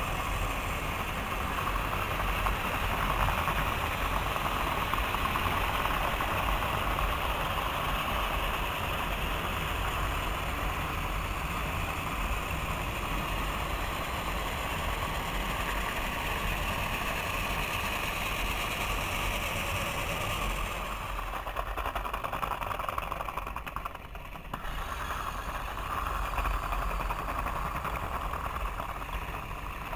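Motorized toy trains running on plastic track: a steady whir of small electric motors and gears. It dips briefly about three-quarters of the way through, then picks up again.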